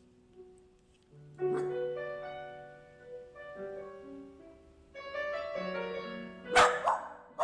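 Solo piano music playing slow notes and chords. Near the end a dog barks loudly over the music.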